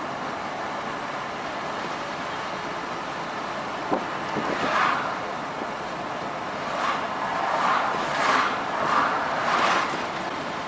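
Steady road and engine noise of a truck on the highway. From about halfway through, five or six vehicles whoosh past in quick succession. A short knock sounds about four seconds in.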